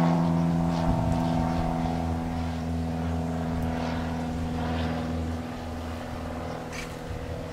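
A steady engine drone that slowly fades away.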